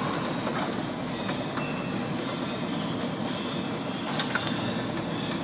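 Hand ratchet clicking in short strokes as a fastener on the dryer panel is driven, over a steady machine rumble.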